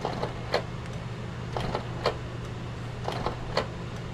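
Canon G1010 inkjet printer running a deep head-cleaning cycle to clear a missing colour, its mechanism clicking in a repeating pattern: a pair of clicks about every second and a half, the second the sharper, over a steady low hum.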